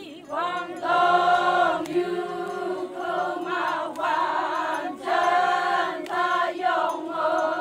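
A group of Konyak Naga men and women singing a folk song in chorus, starting about a third of a second in, with a low note held steadily under shorter, higher phrases that break off and restart about once a second.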